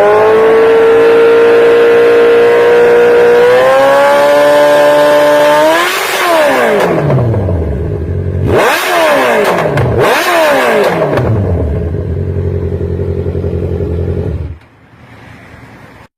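Engine exhaust held at high revs, climbing a little higher, then falling away as the throttle closes; two quick throttle blips follow, each rising and dropping back, then a steady idle that cuts off suddenly near the end.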